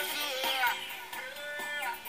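Music played through a homemade speaker box's lit woofers, with little bass in it.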